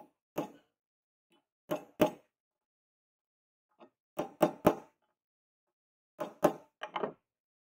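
Hammer striking a small thin sheet-metal collar held on a wooden log, about a dozen sharp taps in short clusters of two to four, shaping the ring that fits over the knife's tang at the blade shoulder.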